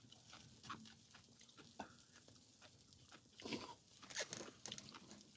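Quiet chewing and eating sounds: scattered soft crunches and clicks, a little louder twice near the middle.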